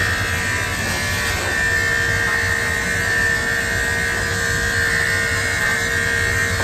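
Corded electric dog clipper running at a constant buzz with a high steady whine, its blade cutting through a poodle's curly coat on the muzzle.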